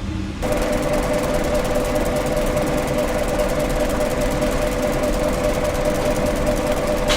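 Bakery machine running with a steady, even hum and mechanical rattle. It cuts in abruptly about half a second in, replacing a different machine's lower hum.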